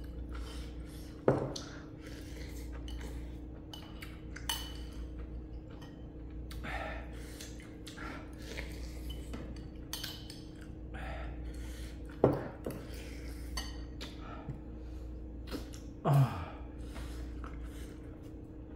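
Eating utensils clinking and scraping against a ramen pot or bowl, in many small clinks with three louder knocks: about a second in, around twelve seconds in, and about sixteen seconds in. A steady low hum runs underneath.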